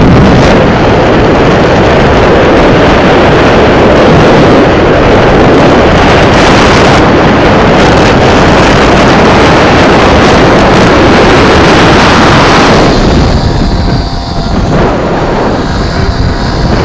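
Heavy wind buffeting on the microphone while riding a small Chinese moped-scooter, with its engine running underneath. About thirteen seconds in the wind eases and the engine's hum comes through more clearly.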